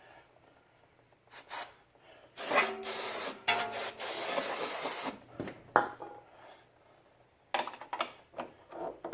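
Aerosol brake cleaner sprayed onto a freshly tightened brake line fitting: a couple of brief bursts, then a longer spray of about two and a half seconds, a sharp click, and a few more short bursts near the end.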